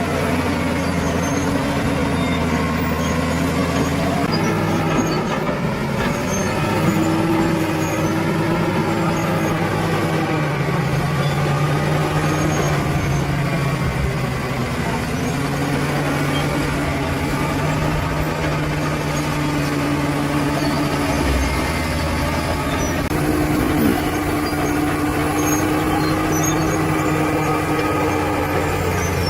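Bulldozer's heavy diesel engine running continuously while working, its note shifting up and down a few times.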